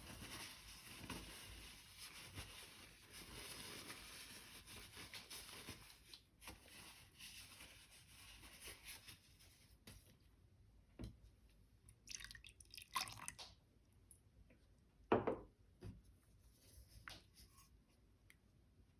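Glossy slime being squeezed and worked, making soft wet, sticky crackling for about the first ten seconds, then a few separate squelches and pops.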